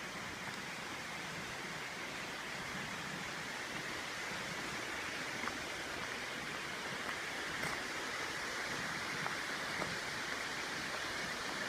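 Steady rushing of a waterfall and its creek, with a few faint ticks.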